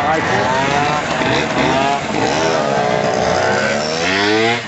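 Motor scooter engine revving, its pitch rising and falling, with a long steady climb in revs near the end.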